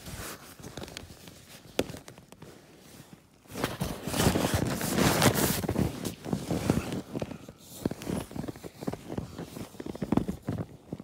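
Nylon fabric of a bivy sack rustling and crinkling as someone shifts inside it, loudest from about four to seven seconds in.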